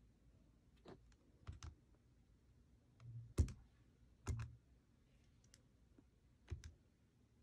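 Keys of a TI-84 Plus CE graphing calculator being pressed one at a time: about eight soft, irregular clicks, the loudest a little past three seconds in.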